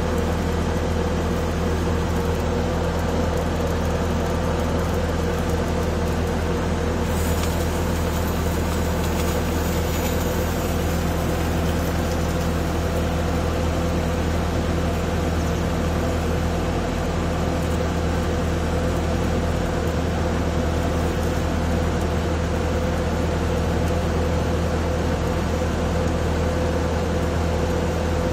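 Bobcat A300 skid-steer loader's diesel engine running steadily while its hydraulic auger drive screws a steel screw pile into the ground. A constant, even hum that holds the same pitch throughout.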